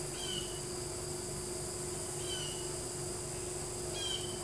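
Outdoor insect chirring, a steady high hiss, with a few short chirps falling in pitch and a faint steady hum underneath.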